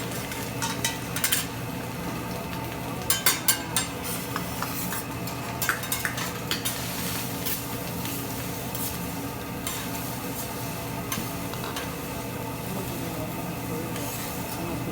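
Food sizzling on a hibachi griddle, with metal spatulas clacking and scraping on the steel cooktop in short clusters during the first seven seconds, then only now and then.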